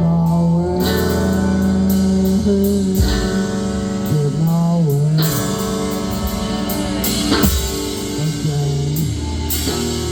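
Live band playing a rock song, with guitar over a drum kit.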